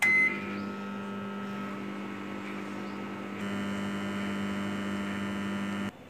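Microwave oven beeps once as it is switched on, then runs with a steady hum. The hum gets a little louder about three and a half seconds in and stops abruptly just before the end.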